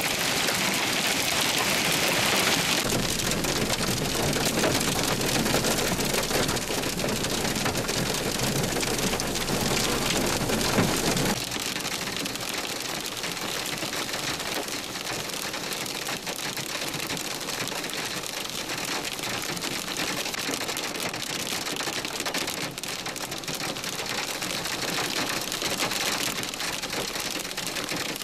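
Hail and heavy rain pelting pavement in a dense, steady clatter of countless small impacts, a little quieter from about eleven seconds in.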